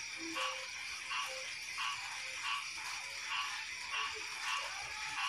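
Frogs calling in an even rhythm, about three calls every two seconds, over a steady high-pitched drone of night creatures, as the frogs chorus after heavy rain.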